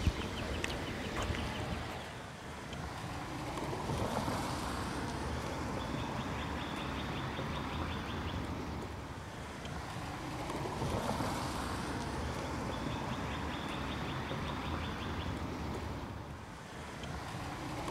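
Outdoor street ambience: a rushing noise that swells and fades every six or seven seconds, with a few spells of faint rapid ticking.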